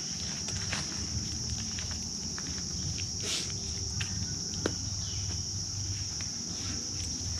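Steady high-pitched insect chorus, with scattered light clicks and rustles as a wire-mesh minnow trap and its cord are handled.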